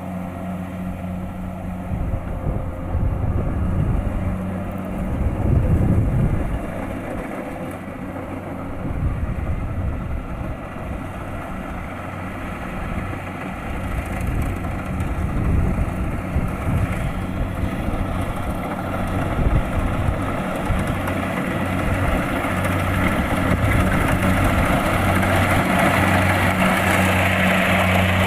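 Kubota DC-70 Plus rice combine harvester running, its diesel engine giving a steady hum under the broad noise of the machine. It grows louder and brighter over the last few seconds.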